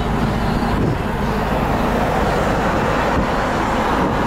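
Steady road noise of a moving car heard from inside the cabin: an even rumble of tyres and wind.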